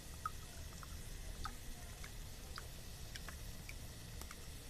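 Thick ketchup-and-spice sauce cooking in an aluminium pot, giving a scattering of small pops and ticks over a faint low hum.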